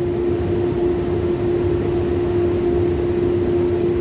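Steady machinery hum of running HVAC equipment, with one steady mid-pitched tone over a low rumble.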